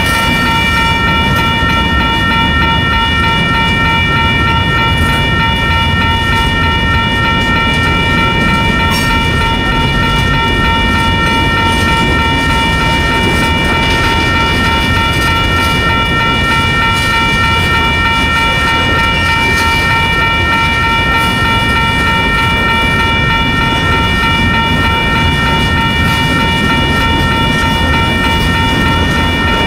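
Freight train of tank cars, hoppers and boxcars rolling past close by: a steady, loud rumble of wheels on rail, with a steady high-pitched whine of several tones held over it throughout.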